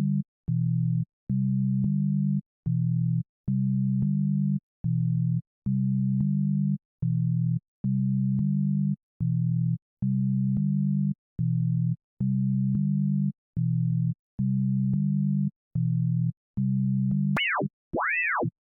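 Surge software synthesizer playing a patch still being built from its Init preset: a low, plain tone with a few overtones, triggered over and over at about one note a second, each note opening with a click. Near the end the sound changes to a high tone that sweeps up and back down in repeating arcs, as the pitch settings are reshaped toward a percussion sound.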